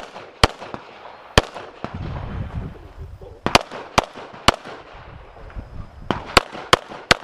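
Handgun shots in quick strings: three groups of about three shots each, the groups about two to three seconds apart.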